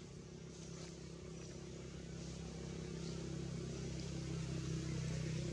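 A motor vehicle's engine running: a low, steady hum that slowly grows louder.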